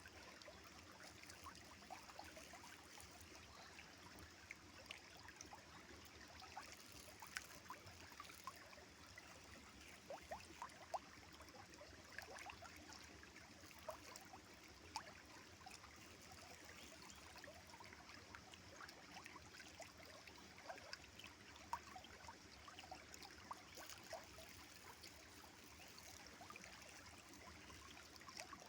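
Faint river water flowing and trickling steadily, with many small splashes and gurgles scattered through it.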